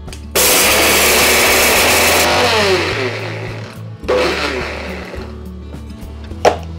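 Electric mixer grinder with a small stainless steel jar grinding dry roasted whole spices into powder: the motor switches on sharply, runs for about two seconds, then winds down with a falling whine. A second short pulse comes about four seconds in and dies away.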